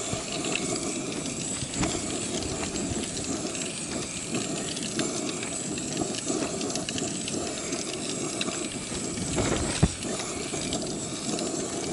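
Camping gas burners running with a steady hiss, with a few light clicks of utensils and one sharper knock near the end.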